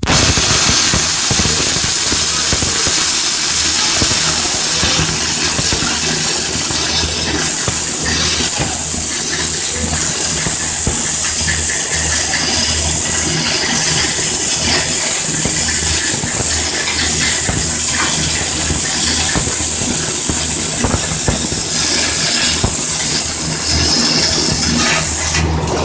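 Stick (shielded metal arc) welding arc, crackling and hissing steadily as one continuous bead is run. It starts and stops abruptly. A low hum runs underneath.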